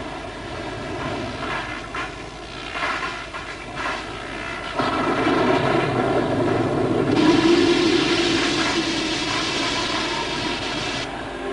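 Cartoon storm sound effect: a steady, roaring rush like strong wind that grows louder about five seconds in.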